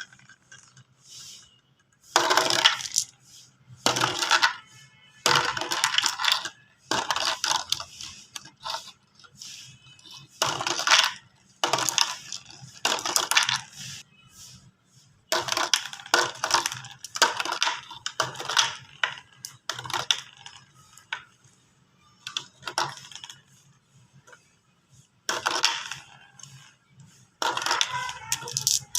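Glass marbles rolling and clattering down a plastic track: bursts of rapid clicks and clinks, each a second or two long, separated by short pauses.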